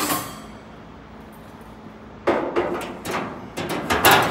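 Thick-gauge stainless steel cooking rack clattering as it is handled and slid into the rails of a vertical pellet smoker's steel cabinet. A single clink at the start, a quiet stretch, then a run of metal rattles and knocks from about two seconds in, loudest near the end.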